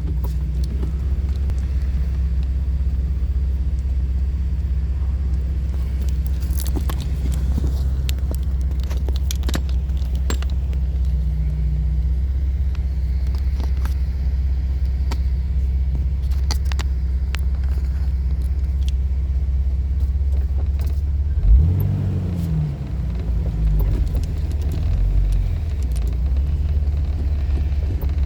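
2004 Jeep Wrangler driving, a steady low engine and road rumble with scattered light rattles. About 21 seconds in there is a bump, and then the engine pitch rises and falls for a few seconds.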